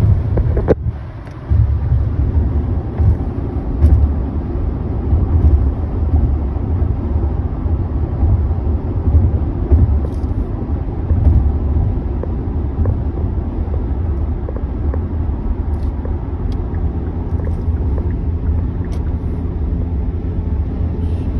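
Road and engine noise inside a moving SUV's cabin: a steady low rumble, with a faint even hum joining about two-thirds of the way in.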